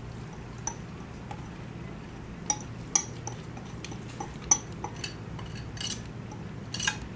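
A utensil scraping and clinking against glass bowls as a stuffing and carrot mixture is scraped out of a glass mixing bowl into a glass casserole bowl: scattered light clinks and taps, the sharpest about three and four and a half seconds in.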